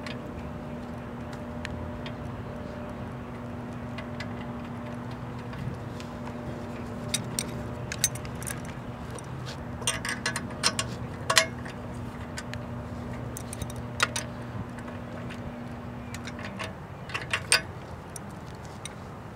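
Scattered metallic clicks and clinks of an adjustable wrench and spark plug as the plug is refitted and tightened into a Gamefisher outboard's cylinder head, coming in small clusters. Under them a steady low hum runs until it stops near the end.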